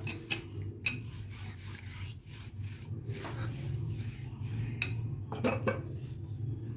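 Wooden rolling pin and hands working a large sheet of flour-dusted paratha dough, making a dry rubbing and scraping with a few light knocks, over a low steady hum.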